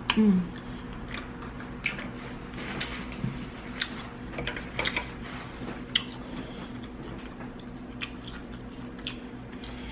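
Close-miked eating sounds: a person biting and chewing saucy prawns, with wet smacks and scattered sharp clicks that thin out in the second half. A short low 'mm' with a falling pitch comes right at the start.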